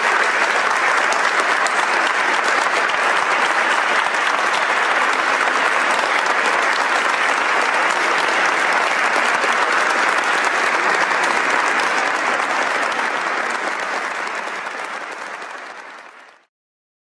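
Audience applauding steadily, a dense patter of many hands clapping, fading out near the end.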